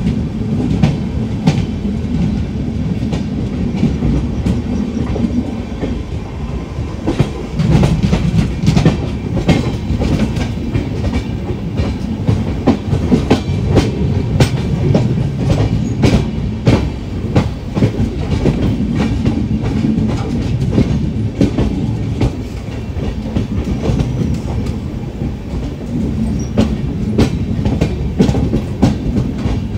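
A Humsafar Express passenger coach running, heard from on board. There is a continuous low rumble, with the wheels clicking sharply and irregularly over the rail joints as the train approaches the station.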